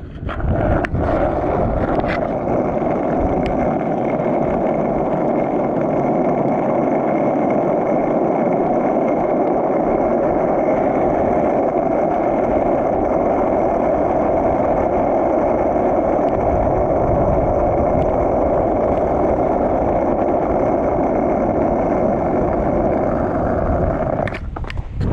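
Skateboard wheels rolling on asphalt down a hill: a steady, loud rolling rush, with a few sharp clicks in the first couple of seconds as the board is stepped onto and pushed off, fading out about a second before the end.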